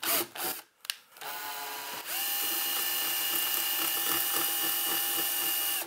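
Cordless drill spinning up with a rising whine and then running steadily, its bit cutting sideways into the metal amplifier chassis to slot out an off-centre hole; it cuts off suddenly near the end. A few short clicks come before the motor starts.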